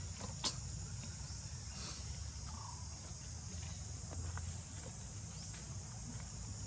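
Steady high-pitched insect drone, with a low rumble underneath and a few scattered clicks, the sharpest about half a second in.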